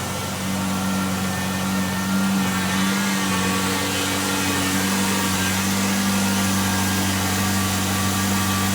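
Car engine idling steadily with its accessory belt drive running.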